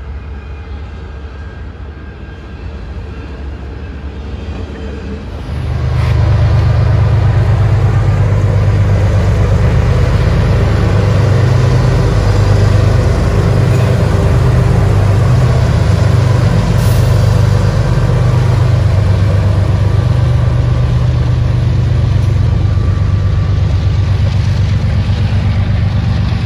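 CSX diesel freight locomotives passing close by with their engines working, a loud steady low rumble. It follows a quieter stretch of train sound and jumps up about five seconds in.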